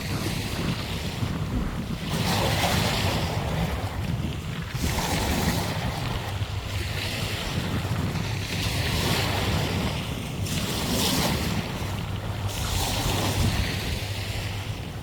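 Sea waves breaking and washing onto the shore, surging about every two to three seconds, with a steady low rumble of wind on the microphone.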